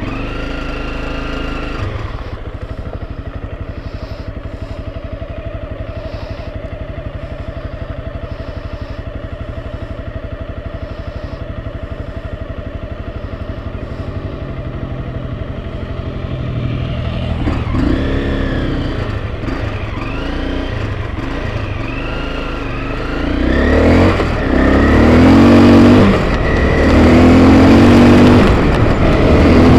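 Enduro motorcycle engine running at a steady low pace, then revving harder from about halfway, its pitch rising and falling with the throttle and getting louder near the end.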